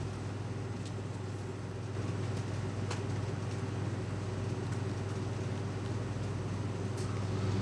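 Steady low hum of running refrigeration equipment, with a few faint clicks.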